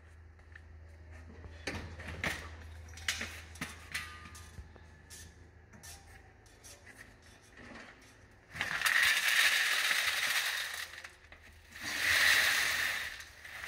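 Scattered metal clinks and knocks as the stainless-steel collection drum of an industrial vacuum is handled. Then comes gravel and soil tipped out of the drum onto a hard floor in two loud rattling rushes, one about two thirds of the way in and a shorter one near the end.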